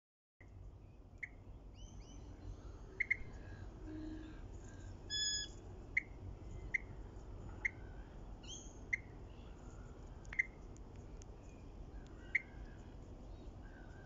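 Wild birds calling in the trees: a short, sharp note repeated about once a second, with scattered higher chirps and one louder, longer call about five seconds in. A steady low rumble lies underneath.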